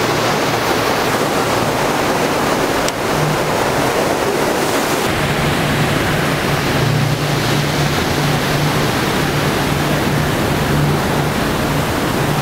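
Loud, steady rush of turbulent water as a canal lock chamber fills, with a low steady hum joining about five seconds in.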